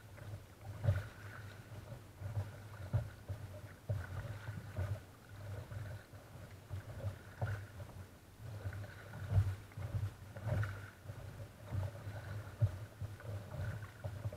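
Water lapping and slapping against a kayak's hull as it is paddled across calm sea, with irregular low knocks and sloshes.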